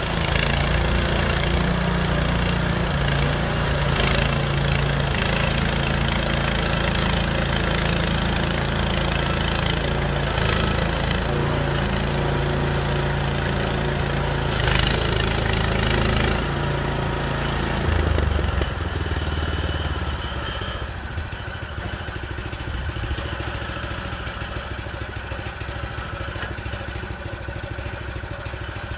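Small gasoline engine of a Harbor Freight Central Machinery portable band sawmill running steadily under load while the band blade cuts through a log, with a dense cutting hiss over it. About two-thirds of the way through the noise drops off and the engine settles to a quieter idle.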